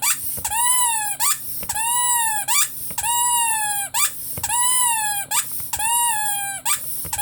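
Squeaky rubber dog toy squeezed and released over and over, about once a second. Each squeeze gives a long squeak that rises then falls in pitch, and each release a short upward squeak as the toy refills with air.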